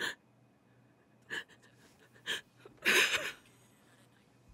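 A person crying: a few short, sharp sniffles through a runny nose, then a longer, louder shaky sobbing breath about three seconds in.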